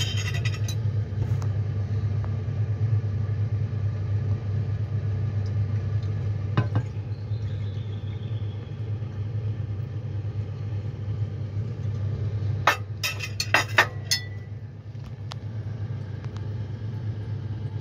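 A steady low hum, under a short pour of liquid from a glass beaker into a ceramic Büchner funnel. There is a single clink of glassware about 7 seconds in and a quick run of glass clinks about 13 seconds in.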